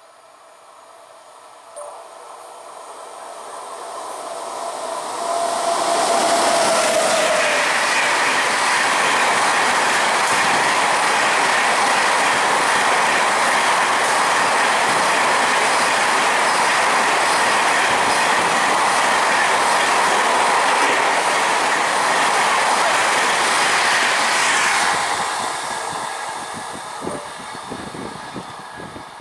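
Indian express trains crossing at high speed on a main line. The rush of wheels on rail builds over about six seconds, holds loud and steady for nearly twenty, then fades with a few separate wheel clacks near the end.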